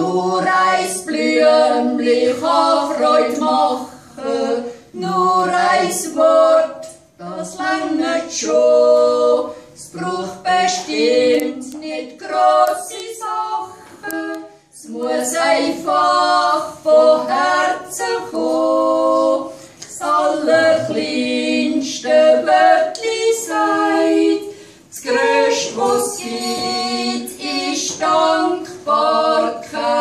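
Two women singing a cappella together as a duet, in sung phrases with a short pause about halfway through.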